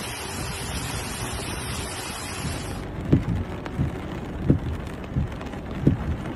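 Heavy rain with rushing floodwater, a steady even hiss. About three seconds in the sound turns duller, and a low dull thump repeats roughly every 0.7 seconds under the rain.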